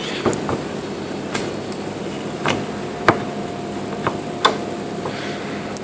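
Irregular light clicks and knocks, about ten spread over several seconds, as a transmission pressure control solenoid is worked by hand and slid out of its bore in a metal valve body.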